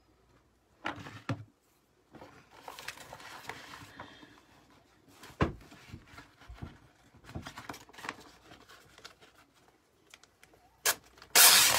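Rustling and handling of plastic Chalk Couture transfer sheets, with a few light knocks and clicks, and a short, louder crinkly rustle near the end.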